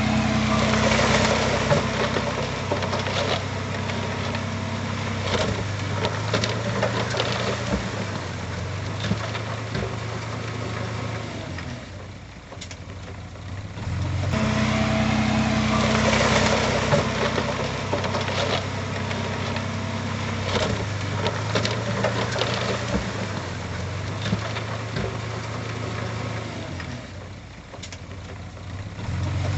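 Heavy-equipment diesel engine running steadily, its level easing off twice and picking back up.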